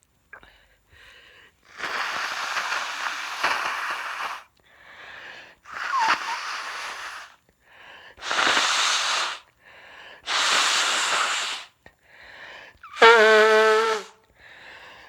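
A person blowing their nose hard four times, each blast lasting about two seconds with a quick breath in between, the second with a brief nasal squeak. About thirteen seconds in comes a short voiced sound from the same person.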